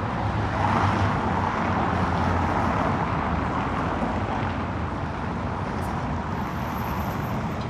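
Car traffic on a city street: tyre and engine noise of passing cars swelling about a second in and slowly easing off, over a steady street hum.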